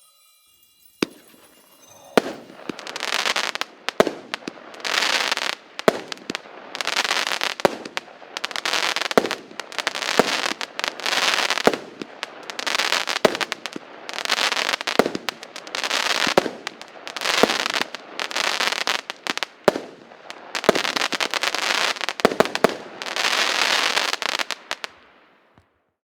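A 16-shot, 0.8-inch consumer fireworks cake firing its shots one after another, about one every second and a half. Each shot is a sharp launch thump followed by a burst of crackling stars. Near the end several shots come close together as a finale, and then it stops.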